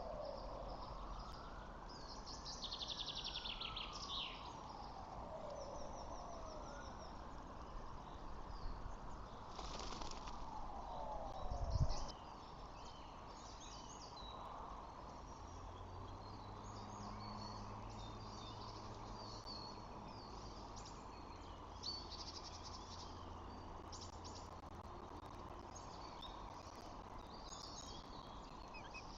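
Outdoor ambience of small birds chirping. For the first twelve seconds a distant tone wails slowly up and down like a siren, a thump comes about twelve seconds in, and a low steady hum follows.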